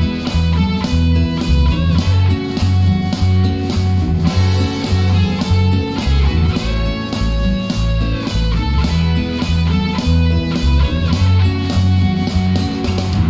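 Background music: a guitar-led song with bass and a steady drum beat.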